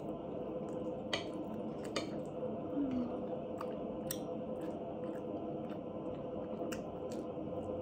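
Metal spoon clinking and scraping against a ceramic plate of rice and ribs: a scattering of short, light clicks over a steady low hum.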